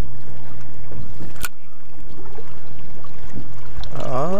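Steady low hum of a boat motor, with one sharp click about one and a half seconds in.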